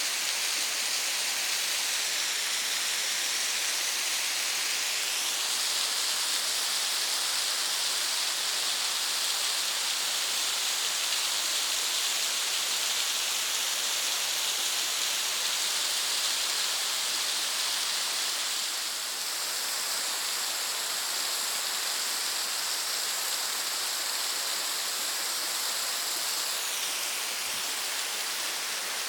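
Kiyotaki Falls on Mt. Ontake, water falling steadily: a constant rushing hiss, strongest in the high range, easing very slightly about two-thirds of the way through.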